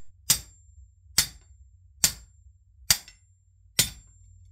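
Steel club hammer striking a steel puller plate on a long rod, five sharp metallic blows just under a second apart, each with a faint high ring. The blows drive a Jeep front axle shaft and hub assembly apart.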